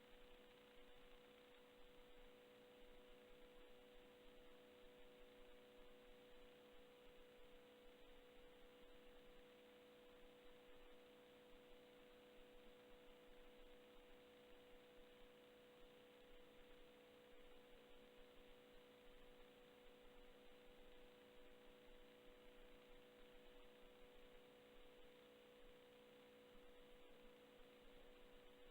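Near silence: a faint, steady electrical hum with a few constant tones over low hiss.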